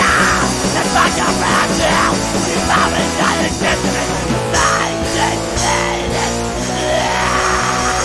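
Punk rock recording by a full band: distorted electric guitars, bass and drums playing loud and steady, with regular drum hits.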